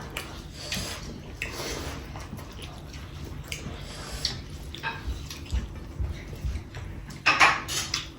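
Close-up eating sounds of a rice and chicken curry meal: chewing and wet mouth sounds with scattered light clicks, and a louder short burst near the end.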